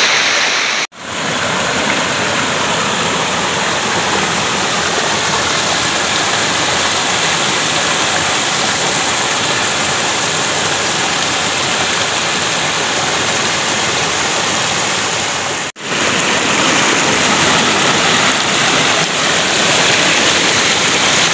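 Steady rush of a rocky forest stream's small waterfalls and cascades pouring over boulders. The sound cuts out for an instant twice, about a second in and again about three-quarters of the way through.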